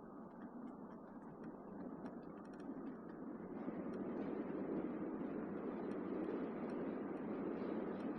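Car driving on a road: steady, muffled tyre and road noise that grows louder about halfway through, with a few faint light ticks early on.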